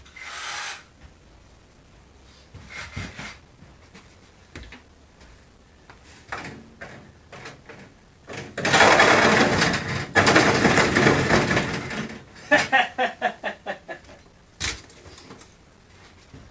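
A cordless power tool runs hard for about four seconds, easing off briefly in the middle, then is pulsed in a quick run of short bursts that fade out. Scattered clicks and handling knocks come before it.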